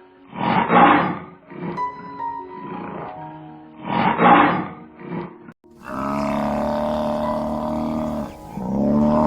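Lion roaring: a series of roars, loudest about half a second and four seconds in, over soft background music. About six seconds in, a long, steady-pitched sustained sound takes over and sounds twice.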